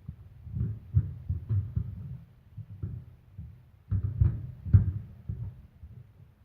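Irregular low thumps and knocks, a few with a sharp click on top, loudest in clusters about a second in and again around four to five seconds in.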